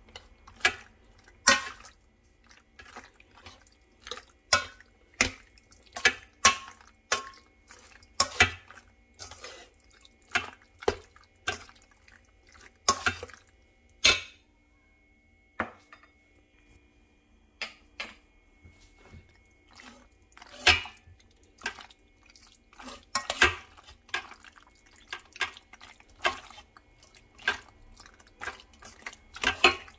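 Sauced ziti and cheese being stirred in a stainless steel colander: irregular clicks and scrapes of a spoon against the metal, with wet squelches of the pasta. There is a short pause about halfway through.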